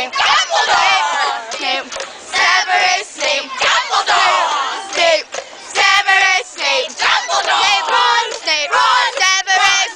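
A crowd of young, high voices singing and shouting together in unison, loud, in short phrases with brief breaks between them.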